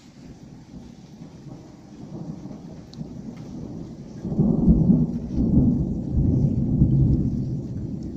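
Thunder rolling: a low rumble that builds steadily, grows loud about four seconds in and rolls on for several seconds before easing near the end.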